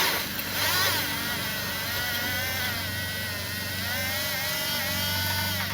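Power ratchet motor whining as it spins out a corroded exhaust bolt, its pitch wavering up and down under load, then stopping near the end.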